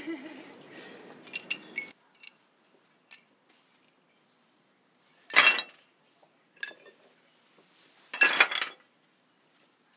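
Shards of a shattered tempered-glass tabletop clinking and clattering against each other as they are handled: a few faint clinks, then two louder clatters about halfway through and near the end.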